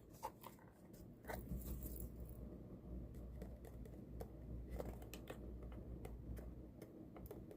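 Faint handling noises of an unboxing: scattered light clicks and ticks as the knife's packaging is worked open.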